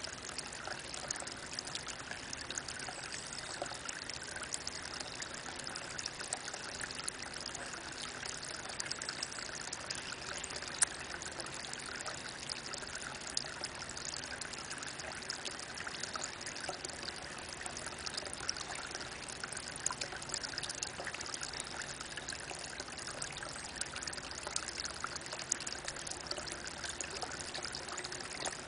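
Spring water falling in a thin stream from a mossy rock into a pond: a steady trickle and splash, dotted with small drips.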